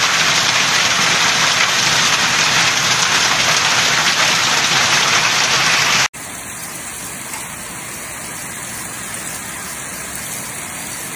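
Heavy hail and rain pelting down in a loud, dense, steady patter of impacts. About six seconds in it cuts to a quieter, steady patter of falling hail and rain.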